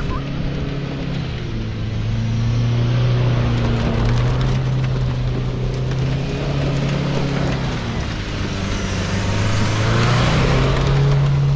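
Isuzu V-Cross pickup's diesel engine running under changing throttle while off-roading, its note stepping down and back up several times. A rush of noise swells near the end.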